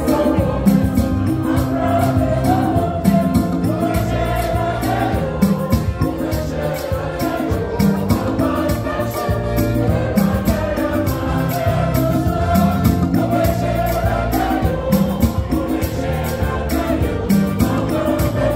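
Youth choir singing a gospel song in harmony through microphones, with sustained wavering notes over a steady low line and a steady beat.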